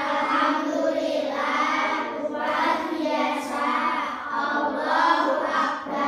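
A class of young schoolchildren singing together in unison, many voices at once, steady through the whole passage.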